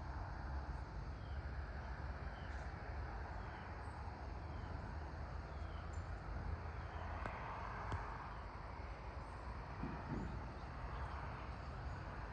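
Early-morning farm ambience: a steady low rumble under a faint wash of distant road traffic that swells about seven seconds in. Over the first few seconds a bird gives a run of short, falling chirps about twice a second.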